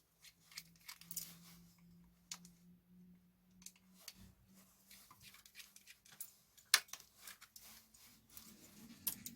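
Scattered clicks, taps and light scrapes of small plastic and metal parts being handled while a cassette player is taken apart, the sharpest click about two thirds of the way in. Underneath, a faint steady hum that rises slightly in pitch and fades out about halfway through.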